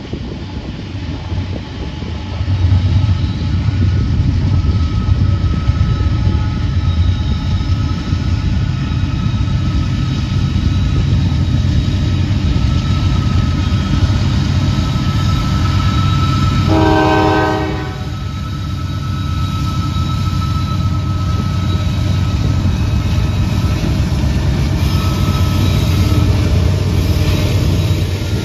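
Diesel-hauled freight train passing close by: the locomotives' low engine rumble builds over the first few seconds, the horn gives one short blast about two-thirds of the way through, and loaded grain hopper cars roll past.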